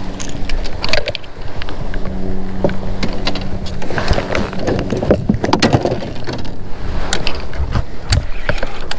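Knocks, clicks and rattles of a fishing rod, reel and gear being handled aboard a kayak, busiest around the middle. Under them runs a steady low motor hum.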